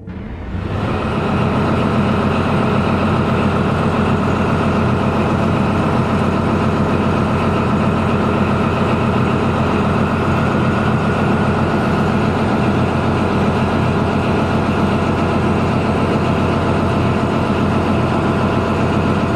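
Heavy tank diesel engine idling steadily, fading up over about the first second and then holding an even, low running note.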